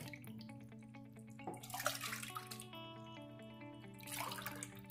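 Soft background music, over which a pan of water heating on the stove gives two brief swells of watery hiss.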